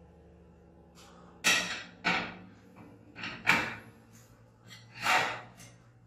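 Steel winding bars clanking in the winding cone of a garage door torsion spring as the spring's tension is let down: about five sharp metallic clanks, each ringing briefly.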